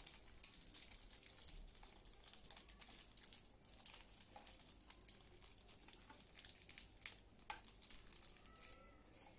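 Faint crinkling and crackling of a small clear plastic bag handled and opened by hand to take out spare silicone ear tips.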